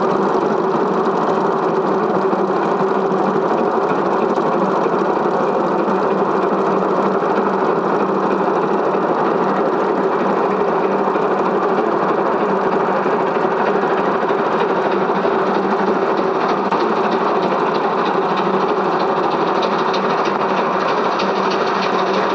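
Cine film projector running: a steady mechanical whirr and clatter from its motor and film transport.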